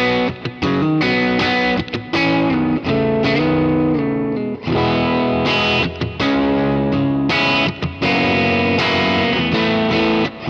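Electric guitar played through a Kemper Profiler: full chords strummed and left to ring, in short phrases with brief breaks between them.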